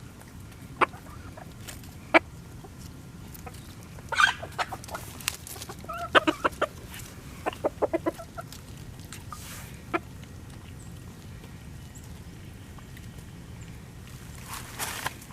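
Chickens clucking: a few single sharp notes, then quicker runs of short clucks in the middle, and a brief noisy flurry near the end.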